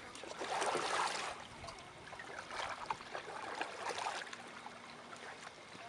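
Canoe paddles moving through the water, with a louder rush of water in the first second and a half, then lighter trickling and dripping.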